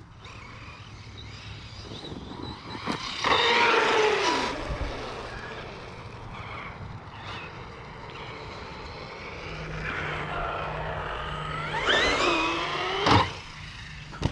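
Losi Lasernut RC buggy's electric motor whining in two bursts of throttle, its pitch sweeping up and down, with a few sharp knocks near each burst.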